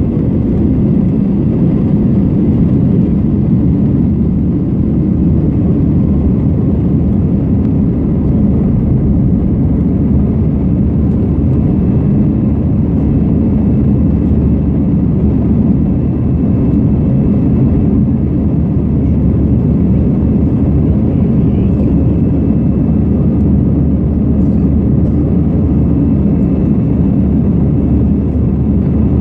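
Cabin noise of an Airbus A321-212's CFM56-5B turbofan engines at takeoff thrust, heard from inside the cabin during liftoff and initial climb. It is a steady, low rush of noise with a faint high whine above it.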